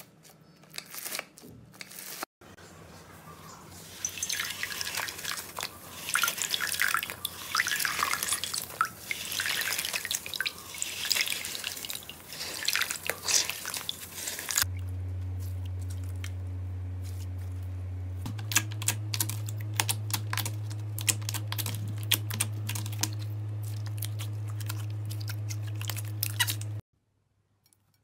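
Wet floral foam squeezed and crushed by hand in water: dense crackling and squelching. About halfway through it gives way to a steady low hum with a few faint crackles, which cuts off suddenly shortly before the end.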